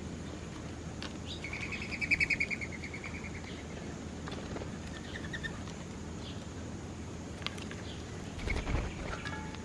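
Small songbirds chirping, with one loud rapid trill about a second and a half in lasting about a second, then scattered short chirps. A brief low rumble comes near the end.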